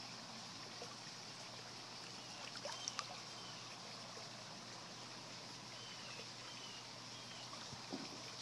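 Backyard koi pond water trickling and running steadily, faint, with a low steady hum beneath and a few faint high chirps and small splashes or clicks now and then.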